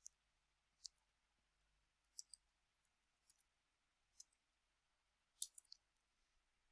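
Keystrokes on a computer keyboard: about ten short, sharp clicks at uneven spacing, singly and in pairs, with a quick run of three a little past halfway, against near silence.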